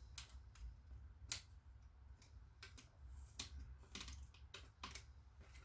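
Faint, irregular small plastic clicks and taps from a laptop's screen assembly being handled as its ribbon-cable connectors are pulled free from their lifted latches.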